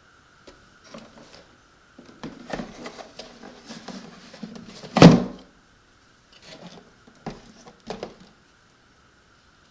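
RC jet boat hull being handled and turned on a wooden table: scraping and knocking, with one loud thump about halfway through.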